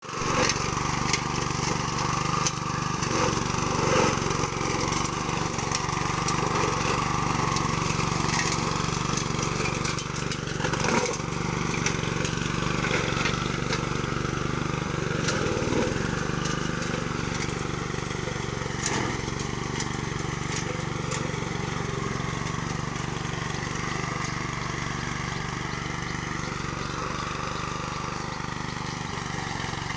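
Honda self-propelled walk-behind lawn mower's four-stroke engine running steadily, with scattered sharp clicks and knocks.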